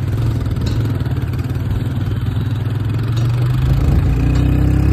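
Motorcycle engine running steadily as the bike rides off over a wet road, its note climbing as it speeds up about four seconds in.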